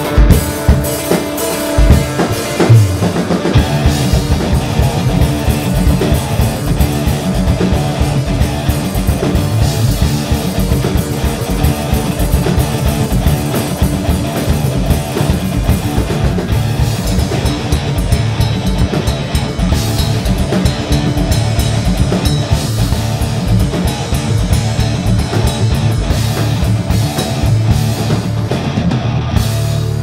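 Live instrumental rock played by a band on drum kit and electric bass, with fast, dense drumming and a heavy low end. Near the end the drumming stops and a held low note rings on.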